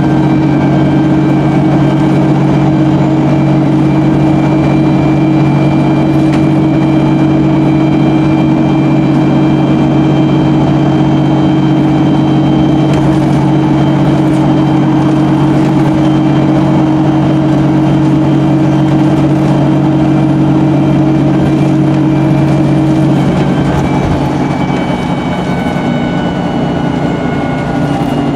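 Cummins-engined MAN 18.240LF single-deck bus running at a steady engine speed, heard from inside the passenger saloon as a steady low drone. About five-sixths of the way through the note changes and the sound gets a little quieter.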